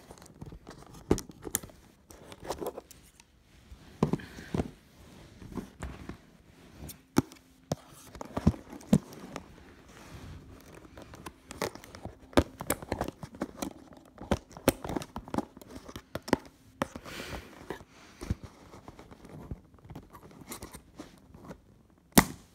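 Scissors snipping and toy packaging being cut, pulled and torn while small parts are worked loose: irregular snips, clicks and scratchy rustles.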